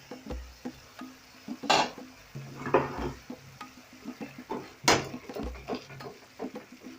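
A metal utensil clinking and scraping against a cooking pot of tomato-based curry sauce cooking down, with two louder knocks about two and five seconds in, over soft background music.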